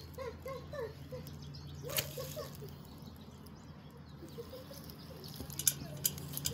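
Chickens clucking softly in quick runs of short notes, with a few sharp taps near the end.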